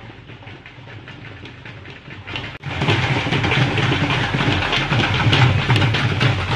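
Dhol drums beating a fast, dense rhythm. They come in suddenly and loud about two and a half seconds in, after a quieter stretch of outdoor background noise.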